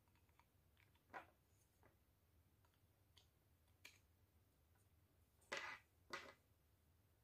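Faint handling noises: soft clicks and rustles of a plastic USB wall charger and its cable being turned over in the hands, with two slightly louder scrapes about five and a half and six seconds in.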